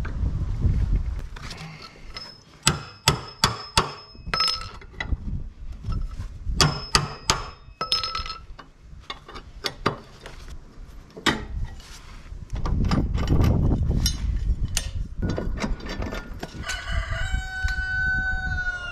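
Steel wrench and tools clanking against the mower deck's blade bolts and blades, in two runs of sharp metallic strikes with ringing after them, then scattered knocks. Near the end a rooster crows once for about two seconds.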